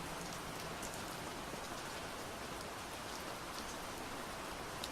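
Gentle, steady rain falling on a surface, with faint scattered drops pattering through it.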